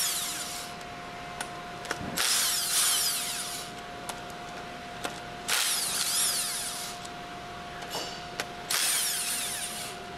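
Cordless impact wrench with a 10mm hex bit running in separate bursts of about a second and a half, one every three seconds or so, as it spins out the retaining bolts of a plunger pump's inlet valve cover. Short sharp clicks fall between the bursts.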